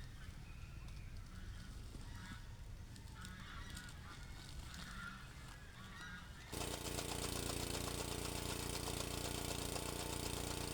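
Farm fowl calling faintly. About six and a half seconds in, a much louder steady noise cuts in abruptly and runs to the end.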